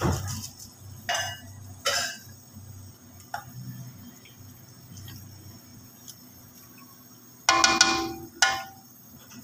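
Metal kitchenware against an aluminium cooking pot: a steel bowl clinks as soaked rice is tipped into boiling stock, then a spatula knocks and scrapes a couple of times while stirring. Near the end metal strikes the pot twice with a loud ringing clang, over a low steady hum.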